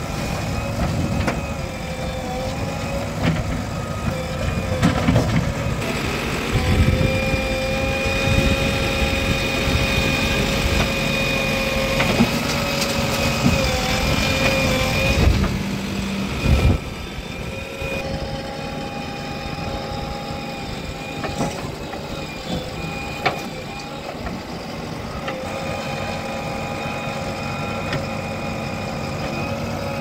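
JCB 3DX backhoe loader's diesel engine running under load while the backhoe arm digs, with a steady whine that builds and holds from about six seconds in to about fifteen, and a couple of knocks around sixteen seconds. A tractor's engine idles alongside.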